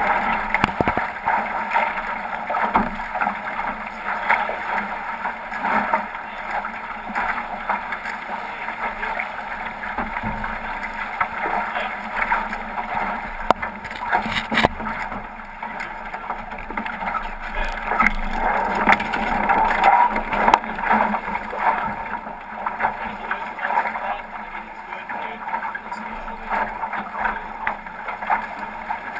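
Water rushing and splashing along the hull of a 505 racing dinghy under sail, with scattered short knocks and rattles from the boat's fittings and rigging.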